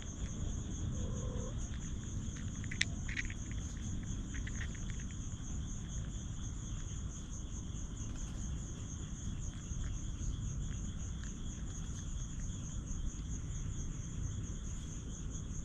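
Night insects, crickets or similar, trilling steadily at a high pitch over a low rumble, with a few faint clicks about three seconds in.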